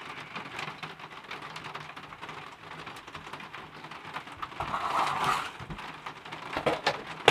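Sticky slime being pulled apart and squished by hand, giving a run of small crackling, popping clicks, with a denser burst of squishing about five seconds in.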